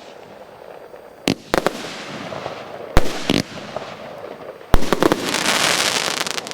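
100-shot firework cake (16–25 mm calibre) firing its last shots. Single sharp bangs come about a second and a half in and twice around three seconds. Then the loudest bang comes near the end, followed by about two seconds of dense, high crackling.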